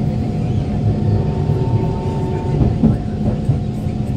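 Kawasaki Heavy Industries C151 train's GTO-VVVF traction motors humming in steady tones over the rumble of wheels on track, heard inside the carriage while it runs at a capped speed of about 40 to 60 km/h. A brief falling sweep comes about three seconds in.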